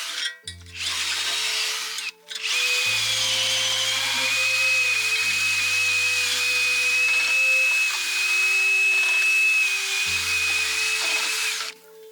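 Electric drill boring into the wooden handle stub stuck in a shovel's metal socket, with a high whine; it stops briefly twice in the first couple of seconds, then runs for about nine seconds and stops near the end. Background music plays underneath.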